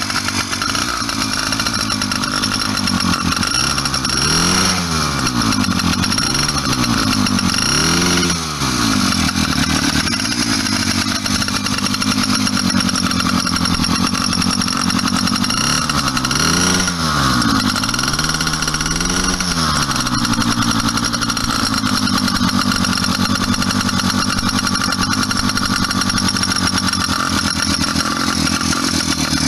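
GT80 66cc two-stroke bicycle engine kit running on the stand, given a few quick throttle blips about four seconds in and again around sixteen seconds in, then settling back to a steady idle.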